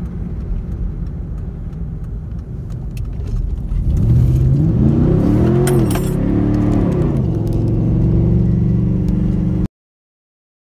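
Straight-piped 5.3-litre V8 of a 2003 Chevy Avalanche, with no exhaust after the Y-pipe, heard from inside the cab. It rumbles, then revs up about four seconds in, rising and falling in pitch, and holds high revs while the rear wheels spin. The sound cuts off abruptly near the end.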